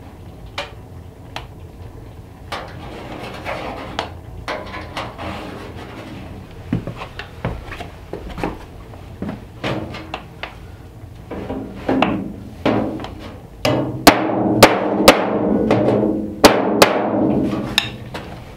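A hammer striking the sheet metal of a handmade 20 oz copper sink, each blow making the box ring. The taps are light and scattered at first, then come louder and closer together through the second half.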